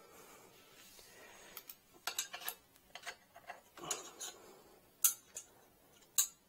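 Scattered sharp metallic clicks and clinks of a hand tool and metal parts knocking against a Voron 1.8 3D printer's aluminium extrusion frame as parts are pushed into place. The loudest click comes about five seconds in.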